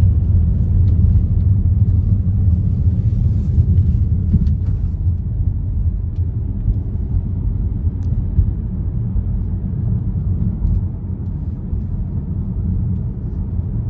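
Steady low road and drivetrain rumble heard inside the cabin of a moving BMW GT, with a few faint ticks. No rattle or creak comes from the freshly repaired sunroof: the sunroof noise is fixed.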